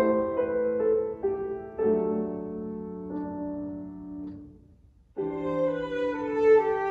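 Violin and grand piano duet: the piano plays a few notes and then a held chord that fades away almost to silence. About five seconds in, violin and piano come back in together with sustained notes.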